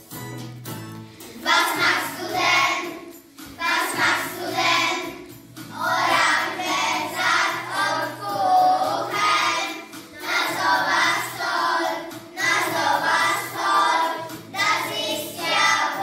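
A class of young children singing a song in German together, in unison, over a recorded backing track. The backing music plays alone for about the first second and a half, then the voices come in in short phrases.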